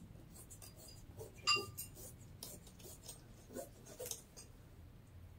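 Scissors snipping through a thin cotton bandana: a series of faint snips and clicks, with one louder click about a second and a half in.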